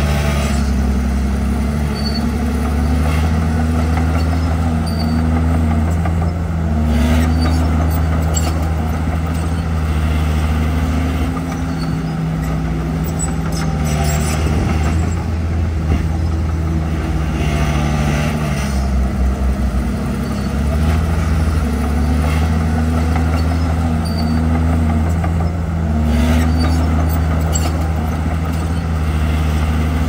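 Komatsu D51PX crawler bulldozer's diesel engine running under load as it pushes soil, the pitch dipping and recovering every few seconds, with occasional metallic clanks from the steel tracks and blade.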